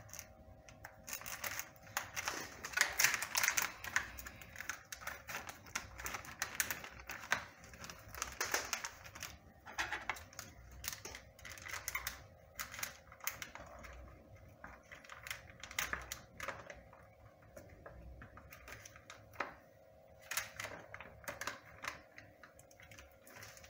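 Plastic packet of diced pancetta crinkling and rustling in gloved hands as it is opened and shaken out into a saucepan, with irregular crackles and light taps.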